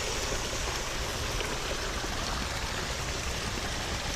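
Water running steadily over the rocks of a backyard pond's stream and waterfall, an even rushing with no breaks.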